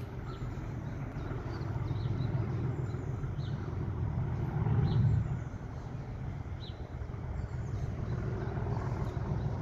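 Low, steady vehicle rumble that swells briefly about five seconds in, with faint short high chirps over it.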